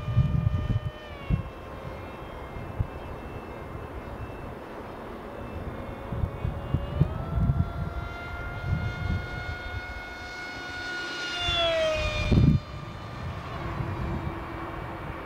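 ParkZone Stryker F-27Q's electric motor and pusher propeller whining in flight. The pitch sags slightly at first, climbs about six or seven seconds in as the throttle comes up, then swoops up and down sharply near the end before a fainter, steadier tone. Irregular wind rumble on the microphone thumps underneath.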